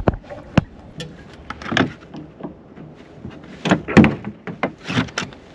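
A string of irregular clunks and knocks as windshield wiper parts are worked loose by hand, about half a dozen in a few seconds, with the loudest pair about four seconds in.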